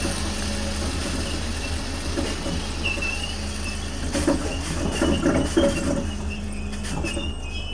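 DART electric train (Class 8100 unit 8131) running, its traction motors giving a steady low hum with a few held tones. A cluster of knocks and clatter comes about four to six seconds in. The motor noise is what the uploader ties to low rail adhesion in the rain.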